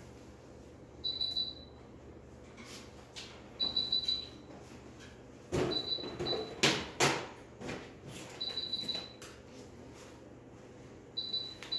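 Electronic medical equipment alarm beeping: short high pips in quick groups of three or four, the groups repeating about every two and a half seconds. Handling noise, rustles and a few knocks, is loudest about halfway through.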